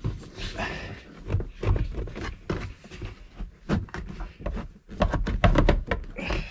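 Grey plastic interior pillar trim panel of a 1997 Ford F-150 cab being wrenched loose by hand. It gives a run of short clicks, creaks and knocks as its retaining clips pop, thickest about five to six seconds in.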